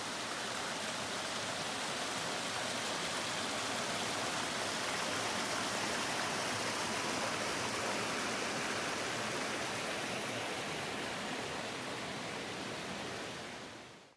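A small rocky mountain brook rushing and splashing over stones in a steady, even rush of water, fading out near the end.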